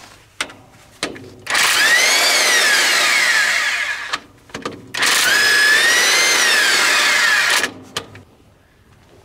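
Cordless impact wrench run twice on a bolt, about two and a half seconds each time, its motor whine rising and then falling in pitch in each run. A few short clicks come before the first run.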